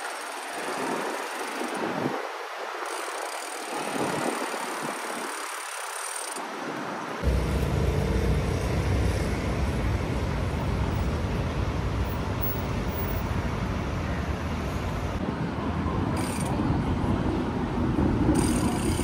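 City street traffic noise, a steady hum of cars on busy roads. About seven seconds in it cuts abruptly to a louder, deeper traffic sound.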